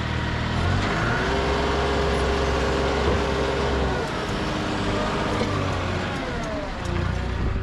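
A motor vehicle's engine running, its pitch climbing about a second in, holding, then sliding down over the second half.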